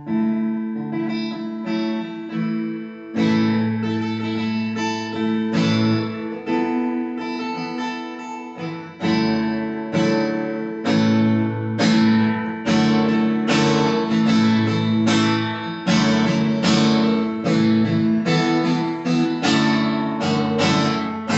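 Acoustic guitar strummed in a steady rhythm of full chords, playing a song's intro through a PA system.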